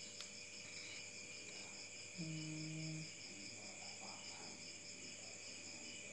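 Crickets chirping in a steady, pulsing chorus, with a brief low hum about two seconds in.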